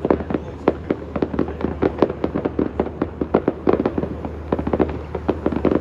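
Fireworks display: a dense barrage of bangs, many reports a second in quick succession.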